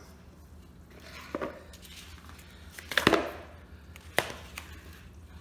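Kitchen handling noises: a few knocks and scrapes as a plastic mixing bowl is set on the counter and ground meat is tipped into it from a paper plate. The loudest comes about three seconds in, with a sharp knock about a second later.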